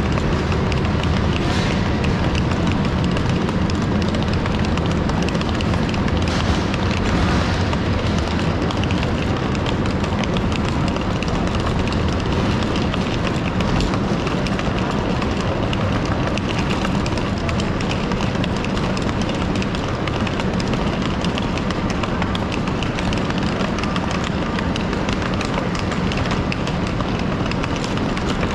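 Steady railway-platform ambience beside a stationary passenger train: a constant low hum and hiss, with faint scattered clicks of footsteps and rolling suitcases.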